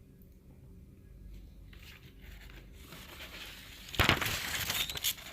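Rustling, crinkling noise over quiet room tone, with a sudden loud burst about four seconds in that lasts around a second.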